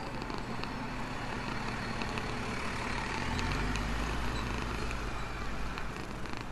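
Low rumble of a motor vehicle going by, growing loudest about halfway through and easing near the end, with scattered small clicks of a cat eating and licking.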